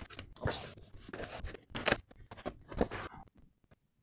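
A small cardboard box being opened and its contents pulled out: rustling, scraping and tearing of cardboard and packing in a quick string of sharp noises, stopping about three seconds in.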